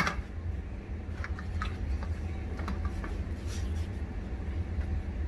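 Plastic shoe-rack parts being handled: one sharp knock at the start, then a few light clicks and taps, over a steady low hum.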